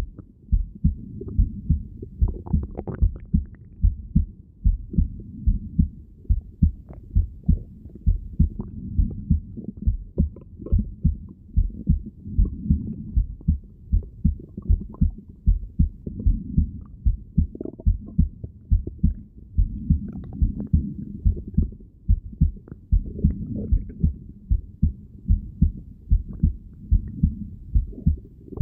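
Heartbeat heard through a stethoscope: a steady, regular beat of low thumps, often paired lub-dub, over a dull low rumble of body noise.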